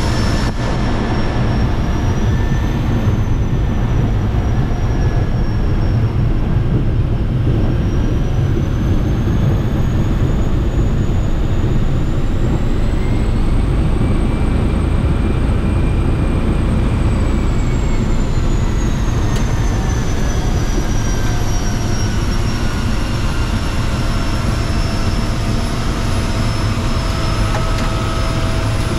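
Seaplane's engine and propeller running steadily with a loud, deep drone. The engine's pitch rises about ten seconds in, holds, and falls back near twenty seconds.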